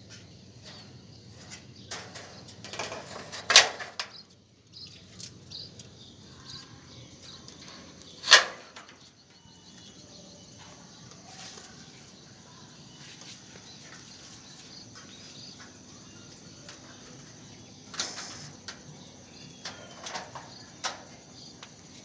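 Several sharp knocks and rustles, two of them loud, about three and a half and eight seconds in, with another cluster near the end, over a faint steady high insect chirring.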